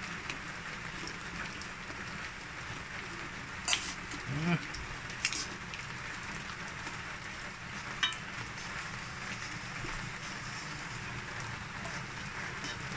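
Large prawns sizzling steadily in a pan. Metal tongs click sharply against the pan three times as the prawns are turned.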